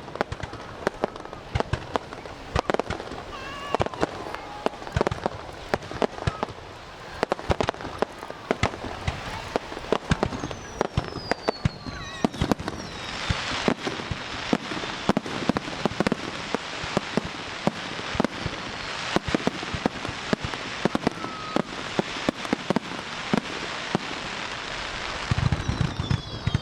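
Fireworks display: aerial shells bursting in quick succession with many sharp bangs. About halfway through, a dense crackling starts. A whistle falls in pitch about ten seconds in, and several whistles sound near the end.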